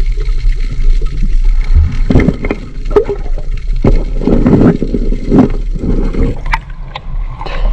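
Water splashing and knocking around a small boat, in irregular bursts, over a steady low hum.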